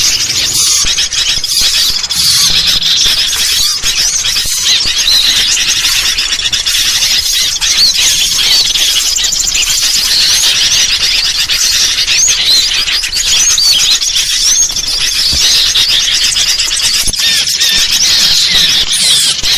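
Dense, continuous chatter of birds: a bird-lure recording of agitated sooty-headed bulbuls mixed with the calls of small songbirds, many quick high chirps and short rising-and-falling whistles overlapping throughout.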